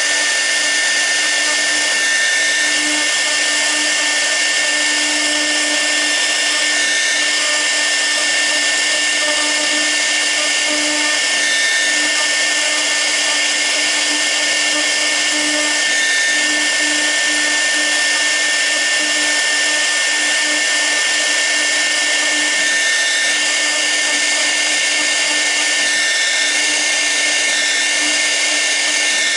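6 kW air-cooled CNC router spindle running steadily at speed during a V-bit carving pass, giving a constant high whine over an even hiss.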